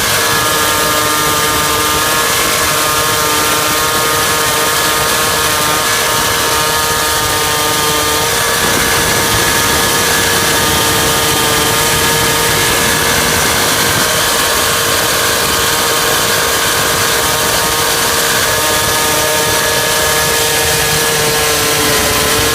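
Petrol-powered ICS diamond-chain concrete chainsaw running at full throttle under load, cutting through sandstone with water fed through the bar. The two-stroke engine holds a steady high pitch over the grinding hiss of the cut.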